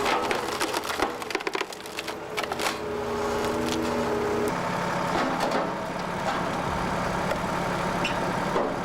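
Wood cracking, splintering and being crushed in a wood-processing machine, over the steady hum of its engine. The snapping is densest in the first few seconds, and the engine tone changes about halfway through.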